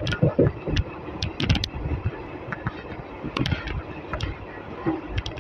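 ICF passenger coach of a moving express train: a steady running rumble of wheels on the track, with irregular sharp clicks and knocks.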